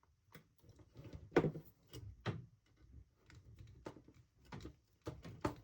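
Scattered light clicks and taps of small hardware and plastic parts being handled as a small nut is fitted onto an M2 screw on a 3D-printed RC snowmobile skid.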